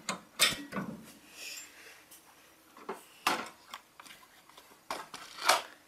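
Scattered metal clinks and light knocks from a pin being worked into the holes of a lawn tractor's steel plow mount bracket, the loudest near the end.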